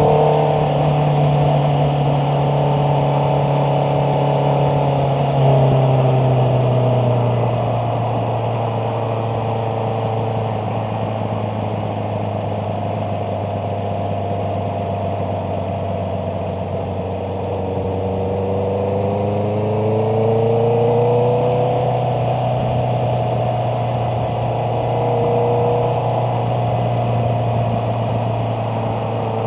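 Honda CBR650R's inline-four engine running under way. The engine note drops about six seconds in, holds steady for a while, then rises again about two-thirds of the way through before settling.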